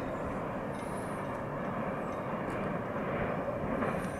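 Intermodal freight train rolling away on the track, a steady rumble of wheels on rail, with faint brief high squeaks about a second in and near the end.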